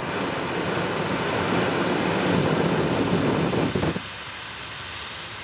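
Morning glory firework, a hand-held flame-and-spark torch, burning with a loud steady rushing hiss and a few crackles of sparks. About four seconds in the flame stage ends and the sound drops abruptly to a quieter hiss as it starts pouring out white smoke.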